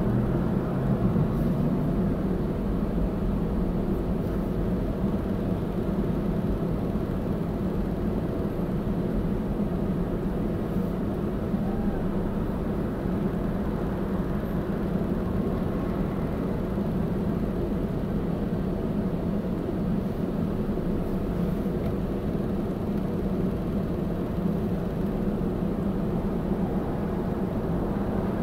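Steady low hum inside a car's cabin from its engine idling while stopped at a light, with the wash of cross traffic passing outside.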